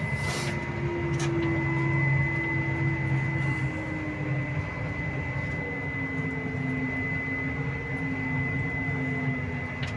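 A vehicle engine running steadily while driving, heard from inside the cab. Its note sinks slightly a few seconds in, and a constant thin high whine sits above it.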